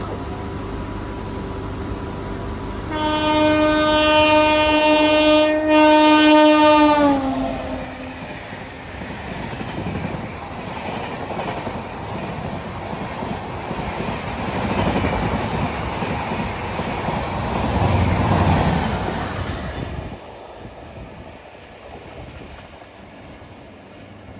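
A locomotive horn sounds for about four seconds, its pitch dropping as it ends, and then a train runs past with wheels clattering on the rails, growing louder twice before fading away.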